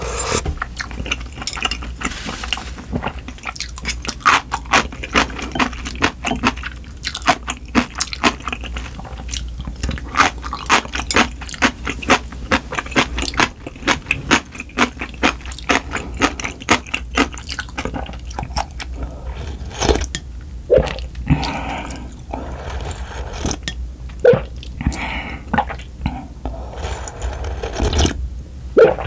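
Close-miked eating sounds of spicy cold buckwheat noodle soup: broth sipped from a ladle and then drunk straight from the bowl, with chewing and a dense run of quick wet mouth clicks.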